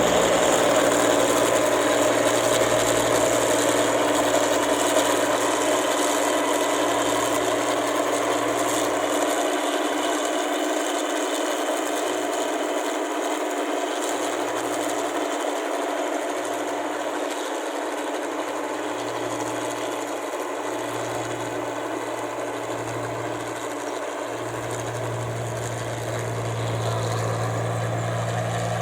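Combine harvester's diesel engine running steadily, with a low hum that wavers through the middle and grows a little louder again near the end.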